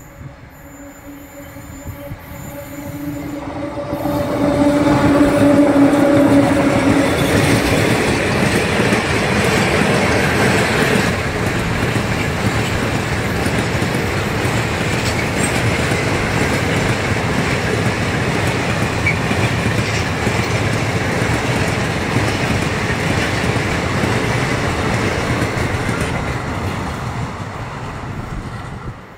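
Freight train passing: a locomotive's steady low hum with a higher overtone grows louder over the first few seconds as it approaches, then a long string of open-top gondola wagons rolls by with a steady rumble of steel wheels on rail, fading near the end.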